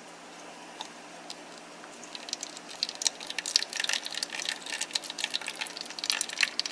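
Hot rendered fat from stir-fried ground pork pouring off a tilted nonstick pan into a plastic cup: a thin trickle with dense irregular crackling that starts about two seconds in.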